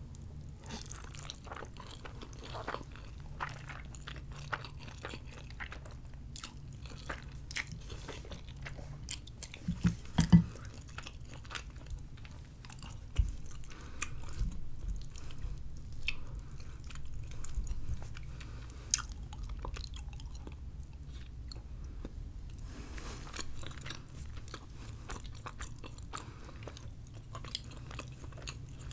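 Close-miked chewing of spaghetti and meatballs: wet mouth clicks and smacks throughout, with a few louder knocks about ten seconds in.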